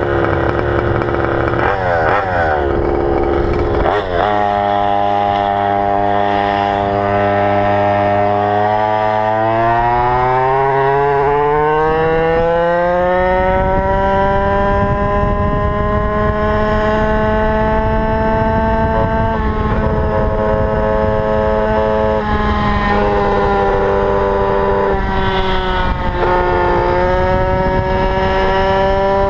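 Go-Ped scooter's GP460 two-stroke engine running, revving up over several seconds to a high, steady pitch held at wide-open throttle, with two short dips near the end. The owner reports an odd sound from the engine at wide-open throttle.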